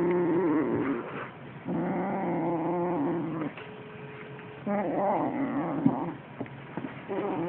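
Young Siamese kitten growling in long, drawn-out low calls, four of them with short breaks between, while it holds a toy mouse in its mouth: the possessive growl a cat gives over prey it is guarding.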